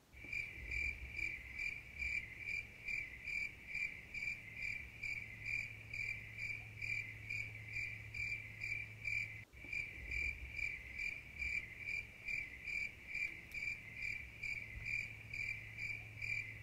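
A cricket sound effect of steady chirping in an even rhythm, about two to three chirps a second, over a low steady hum. It starts abruptly as the talking stops and breaks off for an instant about nine and a half seconds in.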